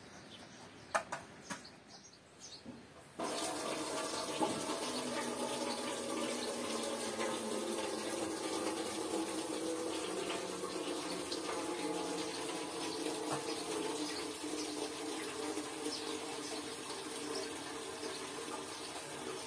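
An outdoor water tap running steadily into a basin, with light splashing as things are washed under it. The water comes in suddenly about three seconds in, after a few faint clicks.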